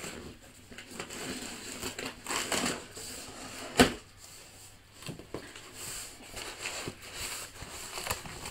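A knife slitting the packing tape on a cardboard box, then the cardboard flaps scraping and rustling as they are pulled open. One sharp knock about four seconds in is the loudest sound.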